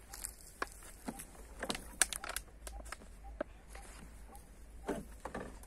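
Footsteps crunching and rustling through dry leaf litter and grass, a string of irregular light crackles and clicks.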